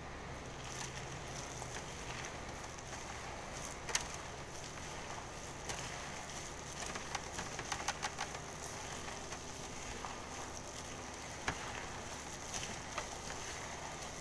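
A plastic-gloved hand kneading and squeezing ground-meat meatloaf mixture with breadcrumbs in a stainless steel bowl: soft crackling and squishing with scattered small clicks and a few sharper ticks.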